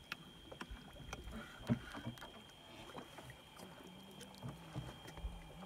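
Faint water lapping around a canoe, with scattered light clicks and knocks and one sharper knock about a second and a half in, as a small fish is reeled to the surface and lifted out on the line. A steady thin high whine runs underneath.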